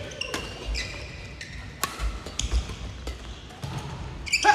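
Badminton doubles rally: sharp racket-on-shuttlecock hits and short high squeaks of sports shoes on a wooden court floor, with a loud cluster of squeaks near the end.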